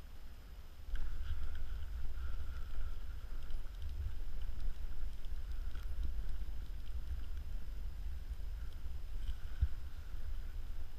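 Low rumbling handling noise on the body-worn camera's microphone that starts suddenly about a second in, as an ice-fishing angler moves and hauls in a perch, with a few faint light clicks from the tackle.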